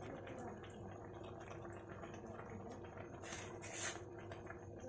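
Noodle soup simmering in an aluminium wok while a metal spatula stirs through the broth, faint and wet, with a short louder scrape-like noise a little over three seconds in.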